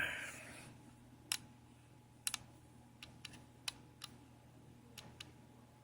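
Faint, scattered small clicks from the controls of a compact Valeton Dapper Amp Mini guitar amp pedal as it is handled and its knobs and switches are worked, about seven at uneven intervals. A brief soft rustle comes right at the start.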